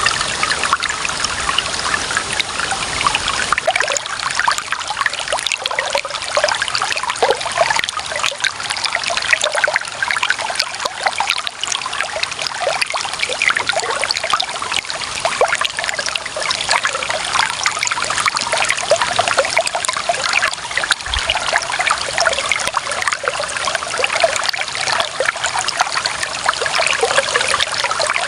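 Clear running water trickling and splashing in a steady, lively flow, like a shallow stream running over stones.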